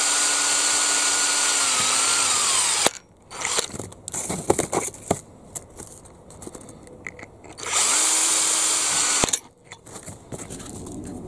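Small power drill boring through a model tractor wheel's hub, making holes that will be tapped for grub screws. It runs steadily, its pitch dips about two seconds in, and it stops near three seconds. After a few seconds of light clicks and handling knocks it runs again for about a second and a half and stops.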